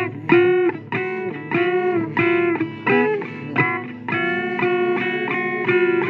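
Blues instrumental passage led by electric guitar: a rhythmic run of short notes that gives way to longer held notes about four seconds in.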